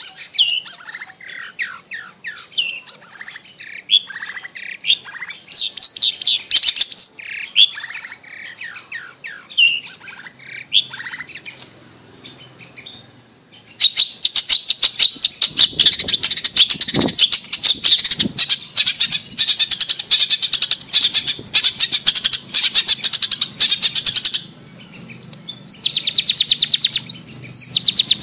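Long-tailed shrike (cendet) song. It opens with varied chirps and short calls, then about halfway through breaks into a fast, dense run of rapidly repeated notes lasting about ten seconds. After a short break the rapid notes return near the end.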